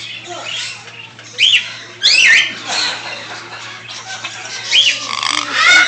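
Birds giving loud, harsh calls that arch up and down in pitch, in clusters about a second and a half in, around two seconds in, and again near the end.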